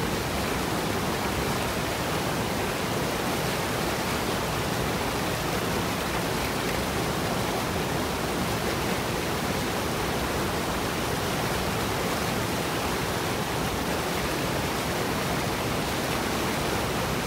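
Small waterfall pouring over a rock ledge into a pool: a steady rushing of water.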